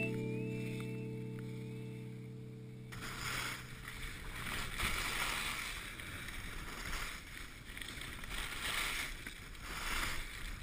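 The last held notes of background music fade out over the first three seconds. Then a rider's descent on a groomed piste takes over: wind rushing over the camera and the hiss of carving on packed snow, swelling and easing with the turns.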